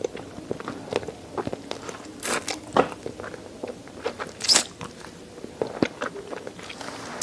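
Close-miked chewing and crunching on chicken neck meat and bones: irregular wet clicks and crackly bites, with a few louder crunches about two and a half and four and a half seconds in.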